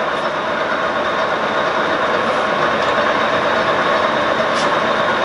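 LeBlond Regal engine lathe running under power: a steady mechanical drone of the spindle drive and gear train.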